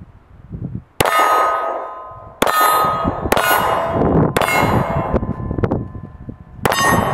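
Five pistol shots at steel targets, each hit ringing out with a bright metallic tone that lingers. The shots are unevenly spaced, the last coming after a longer pause.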